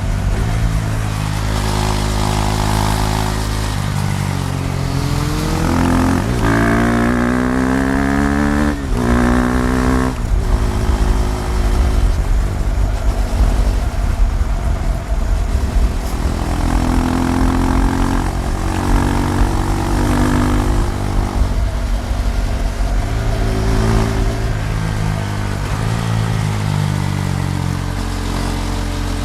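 KTM Duke 390's single-cylinder engine under riding load, revving up hard and shifting up twice in quick succession about six to ten seconds in, then running at steadier revs with small rises and falls of the throttle.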